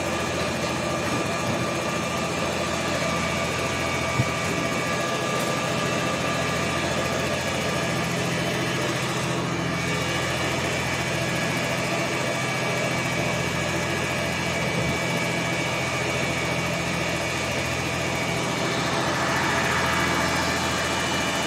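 Fire engine's motor running steadily, with a low hum, growing a little louder near the end. One small click about four seconds in.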